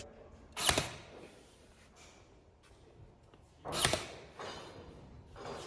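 Pneumatic trim nailer firing twice, about three seconds apart, driving nails into door casing, with a fainter shot near the end.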